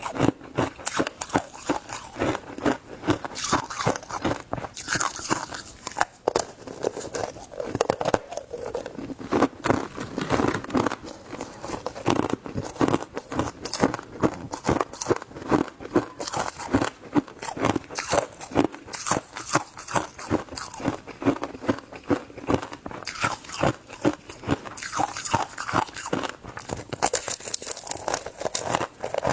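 Shaved ice crunched and chewed close to the microphone: a dense, continuous run of crisp crunches, several a second.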